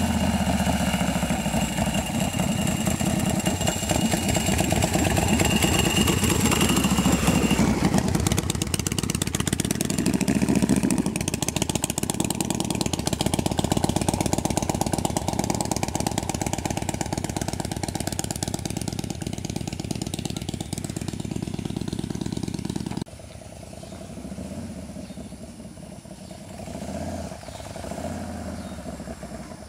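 Custom chopper motorcycle's engine running loudly as it rides past and away. About three-quarters through the sound drops suddenly to a fainter, distant engine, which grows a little louder again near the end.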